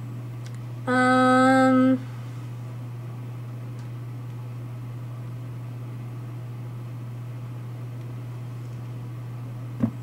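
A woman's voice gives one held 'hmm' on a flat pitch, about a second long, about a second in, over a steady low hum. A short knock comes near the end.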